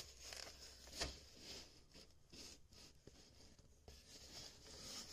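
Faint scraping and rubbing of a cardboard shipping box handled and turned on a countertop, with a soft knock about a second in and a few lighter taps after.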